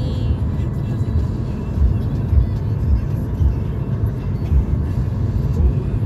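Car on the move: a steady low road and engine rumble.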